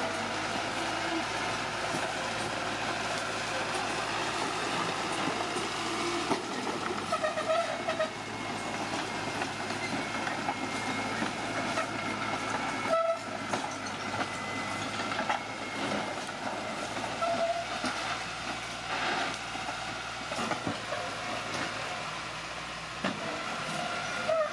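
Bulldozer working: its engine running steadily while the steel crawler tracks clank, with short squeals from the tracks now and then.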